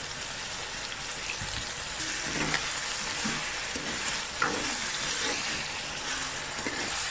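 Chicken pieces sizzling in hot oil in a metal pot. From about two seconds in, a metal ladle scrapes and stirs through them.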